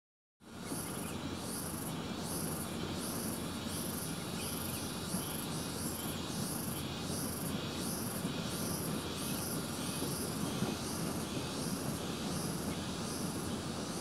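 Insect chirping steadily: a high, even chirp repeating about two times a second, over a low, constant background noise.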